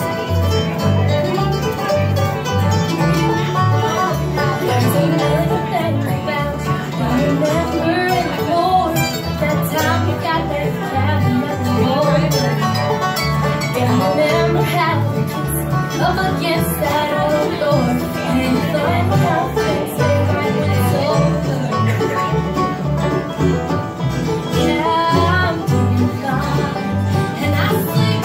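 Live acoustic bluegrass band playing a tune: acoustic guitar, upright bass and other plucked and bowed string instruments, with a steady bass beat underneath.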